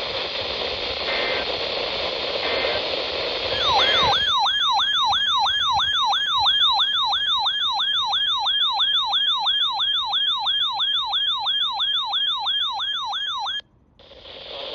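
Weather-radio hiss with three faint short data bursts, then a weather radio's alert alarm: a loud siren-like sweep repeating about three times a second for about ten seconds, which cuts off suddenly as a new alert is received.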